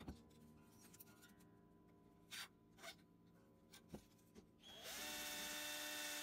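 Quiet workshop with a few faint clicks and taps, then a small electric power tool runs at a steady speed for almost two seconds near the end.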